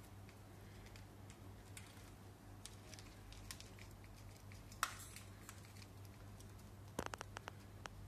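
Cockatiel pecking and husking seed inside a clear plastic hopper feeder: faint, scattered clicks of beak on seed and plastic, a sharper click about five seconds in and a quick run of clicks near the end.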